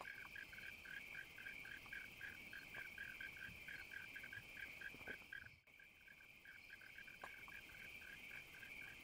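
Faint night chorus of frogs and insects: a steady high-pitched trilling drone with a pulsed call repeating about four to five times a second, broken briefly by a cut about halfway through.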